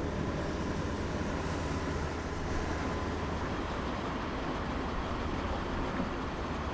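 Heavy vehicle engine running steadily under a constant low rumble and noise, most likely an M3 amphibious bridging rig.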